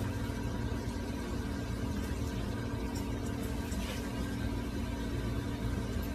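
A steady machine hum with several fixed tones over an even noise, and a few faint ticks.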